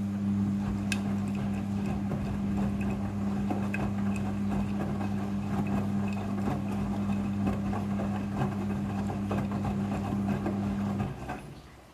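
Midea front-loading washing machine running with a steady low hum over a rattly, watery background, cutting off suddenly about eleven seconds in.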